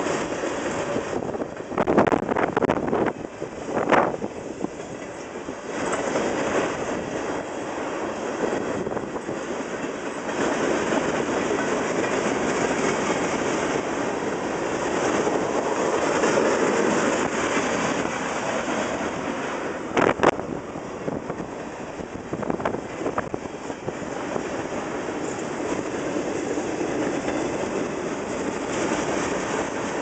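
Iowa Interstate freight train's cars, tank cars among them, rolling steadily past with wheels clicking over the rail joints. A few louder clanks stand out about two to four seconds in and again around twenty seconds in.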